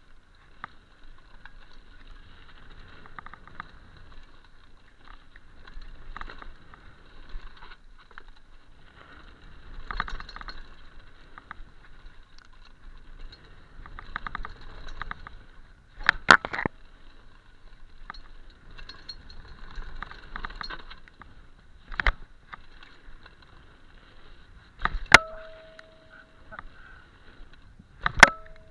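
Mountain bike riding fast down a dirt trail: a steady rattle and tyre noise over the ground, broken by several sharp knocks from bumps, the loudest about halfway through and around three-quarters of the way in. The last two knocks are each followed by a brief ringing tone.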